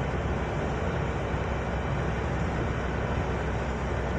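Steady engine and road noise heard from inside a moving vehicle, a low even rumble with hiss above it.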